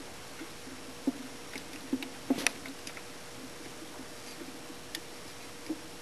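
Irregular light clicks and taps of wire connectors and metal terminals being handled inside a sawmill's drum-switch electrical box, the sharpest pair about two and a half seconds in, over a faint steady hum.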